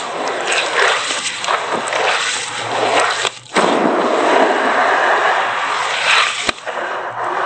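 Gloved hands squishing and scraping through wet cement-sand paste in a plastic tub, a steady churning wet sound with a short break about three and a half seconds in.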